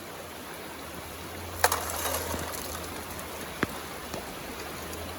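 Steady hiss of light rain and flowing river water, with two sharp clicks about two seconds apart.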